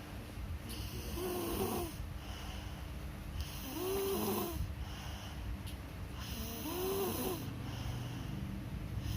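A sleeping person snoring: three snores about three seconds apart, each a wavering pitched drone over a breathy hiss.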